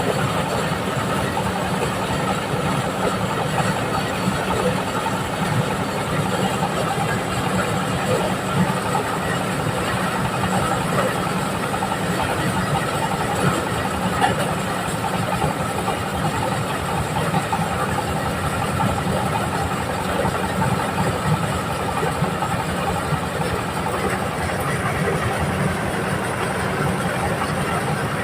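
Engine-driven corn sheller running steadily, its engine and threshing drum making a continuous mechanical sound.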